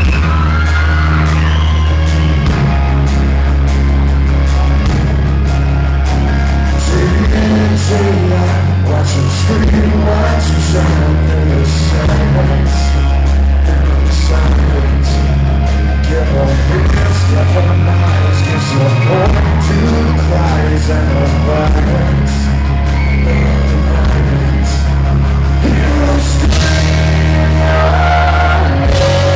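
Live rock band playing loud: electric guitar, drums and a heavy, sustained bass, with a man singing lead into the microphone.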